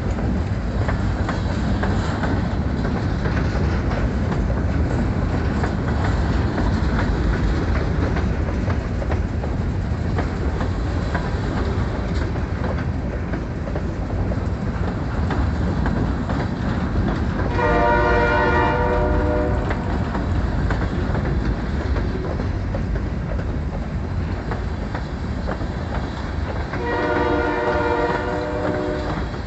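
Freight cars (covered hoppers, then tank cars) rolling past, a steady rumble and clatter of steel wheels on the rails. Twice in the second half, a locomotive horn sounds a chord for about two seconds each time.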